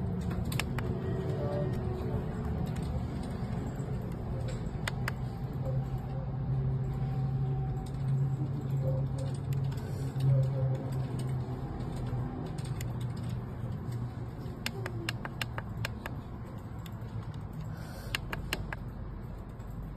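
Scattered sharp clicks of the buttons being pressed on a Noyafa NF8108-M handheld network cable tester, a few near the start, some about five seconds in and a quick run near the end, over a steady low hum.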